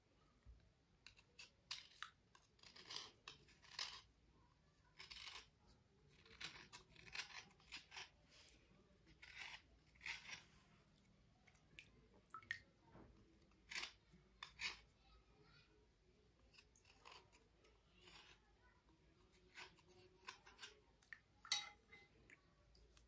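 Slate cubes being scraped and rubbed during cleaning: a faint series of short scratching strokes at irregular intervals.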